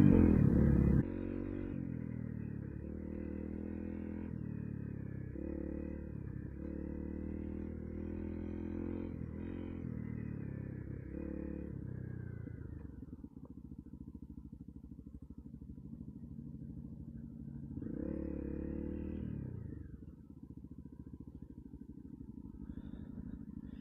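Motorcycle engine running while being ridden off-road, its pitch stepping up and down with the throttle. It is louder for the first second, settles lower and quieter a little past halfway, then rises briefly again a few seconds later.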